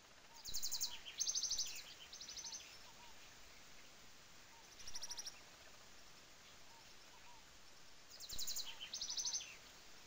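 A songbird singing fast, rattling trills in short phrases: one long phrase of several trills near the start, a brief trill about five seconds in, and the same long phrase again near the end. Underneath, a faint steady hiss of a small waterfall trickling, with faint soft chirps repeating in the background.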